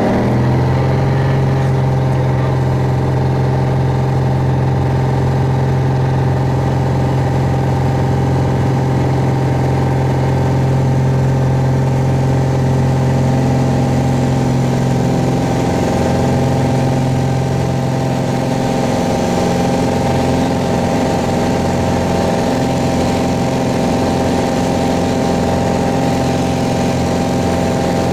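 Piper Arrow's piston engine and propeller running steadily at full takeoff power through the takeoff roll and climb-out, heard inside the cockpit, with a slight drop in loudness about two-thirds of the way through.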